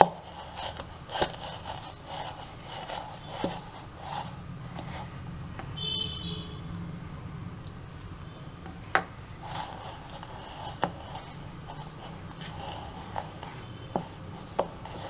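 Hand and spoon mixing crumbly wheat and rice flour with water in a plastic bowl: soft scraping and rubbing with occasional sharp knocks of the spoon against the bowl. A brief high-pitched chirp sounds about six seconds in.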